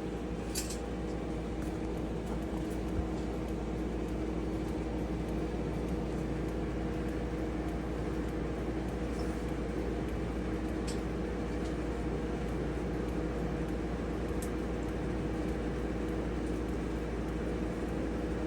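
A small electric fan or blower running steadily with a constant hum, with a few faint clicks.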